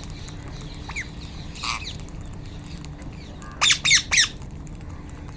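Wild Indian ringneck parakeets calling: a couple of short squawks, then three loud harsh screeches in quick succession about three and a half seconds in.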